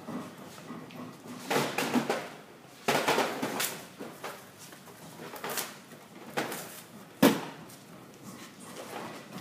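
CRT monitors being shifted and stacked on a pallet: two rough scraping bursts early on, a few lighter knocks, and one sharp loud knock about seven seconds in as a monitor is set down.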